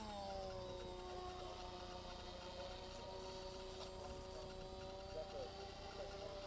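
Electric RC model airplane's motor and propeller whining steadily as the plane takes off and climbs. The pitch drops a little at the start, then holds steady.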